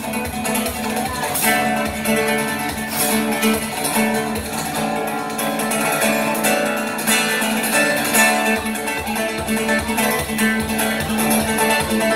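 Solo electro-acoustic guitar playing, with plucked melody notes mixed with strums.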